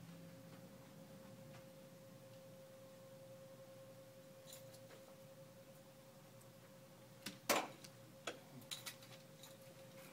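Quiet room tone with a steady thin hum. A quick cluster of sharp clicks and knocks comes about seven and a half seconds in, followed by a few lighter ones.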